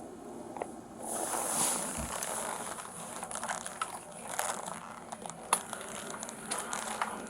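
Rustling and crackling with scattered sharp clicks, getting louder about a second in; one sharper click stands out about five and a half seconds in.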